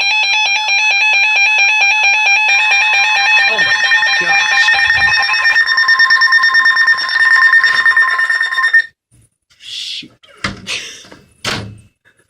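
Weather alert radio sounding its alarm for a severe thunderstorm warning: a loud, repeating electronic beeping, joined by the steady weather-radio attention tone, cutting off suddenly about nine seconds in. A few short noises follow.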